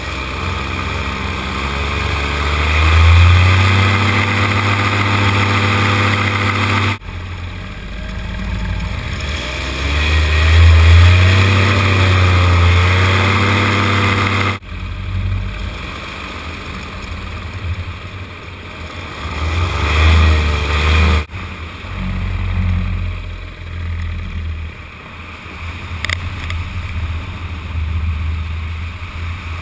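Paramotor's engine and propeller running in flight, the revs rising and falling several times. The sound changes abruptly three times.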